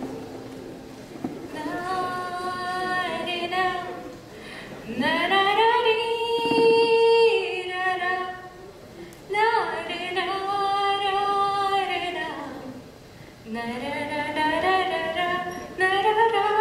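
A woman singing a slow Hindi song solo, in four long phrases with drawn-out held notes and gliding pitch, separated by short pauses for breath.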